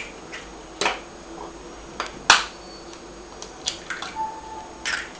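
Eggs being cracked open over a pot: a few separate sharp taps and cracks of shell, the loudest a little over two seconds in.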